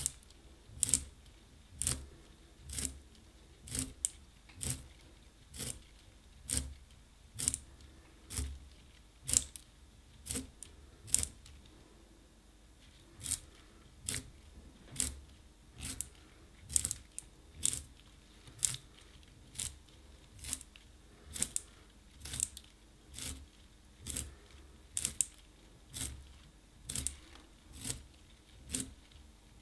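A wooden pencil being twisted in a small handheld plastic pencil sharpener, the blade shaving off wood in short strokes about twice a second, with a brief pause about twelve seconds in.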